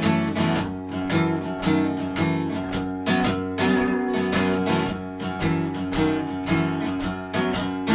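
Acoustic guitar strummed in a steady rhythm, a few strokes a second, in an instrumental passage of a slinky song, with no singing.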